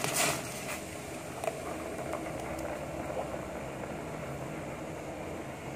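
Blended spice paste poured from a bowl into a stainless steel pot of boiling water, with a brief splash and slosh at the start. The pot then bubbles on the stove with a steady low hiss.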